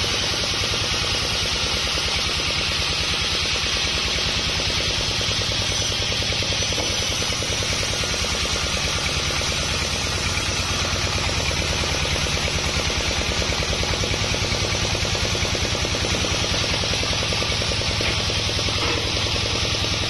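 Band sawmill running steadily while sawing sonokeling rosewood, a machine drone with a fast, even low pulsing and a hiss of cutting noise above it.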